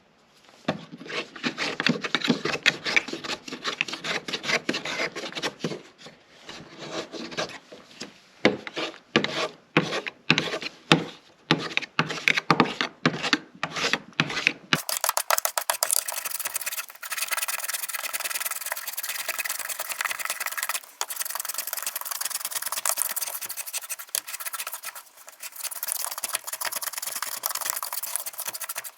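A hand tool working wood in repeated scraping strokes, like filing or rasping. The strokes come close together at first, then separate and spaced out for several seconds, and about halfway through turn into a steadier, thinner scraping.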